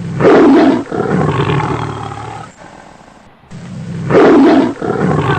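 Tiger roar sound effect, played twice: a loud roar of about two and a half seconds, then the same roar again from about three and a half seconds in.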